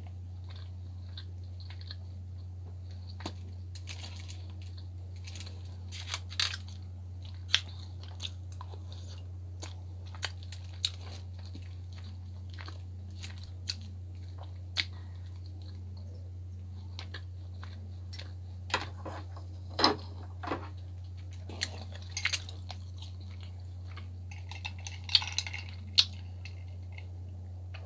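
Close-miked eating sounds: chewing of baked salmon, with scattered wet clicks and small crackles. A sip from a metal cup near the end. A steady low hum runs underneath.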